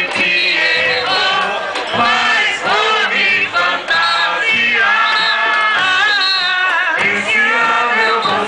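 Carnival marchinha sung through a sound truck's loudspeakers, with many voices singing together.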